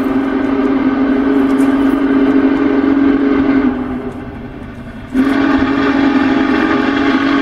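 Union Pacific Big Boy 4014's steam whistle sounding two long, steady blasts on one low chord. The first blast fades out about halfway through, and the second starts abruptly about two-thirds of the way in.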